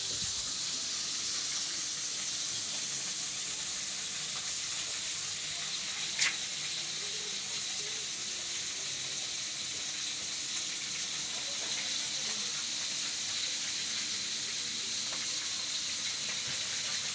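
A steady hiss with one sharp click about six seconds in.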